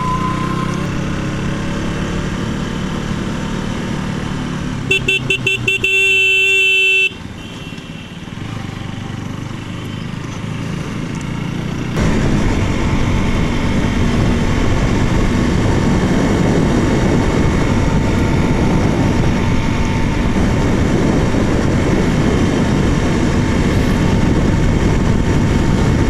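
Riding noise from a KTM RC 200 single-cylinder motorcycle in traffic, with a vehicle horn about five seconds in: a few quick toots, then one held blast of about a second and a half. From about twelve seconds in the engine and wind noise grow steadily louder as the bike picks up speed.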